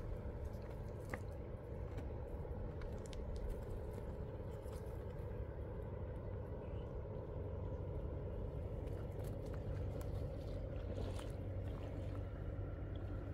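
Steady low outdoor rumble with a few faint clicks and taps scattered through it.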